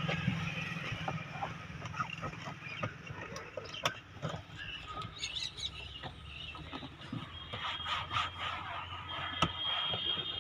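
Light knocks, clicks and rubbing as a cloth wipes the plastic interior panel and handle of a car door, over a steady low outdoor hum. Faint high chirps come in after about seven seconds.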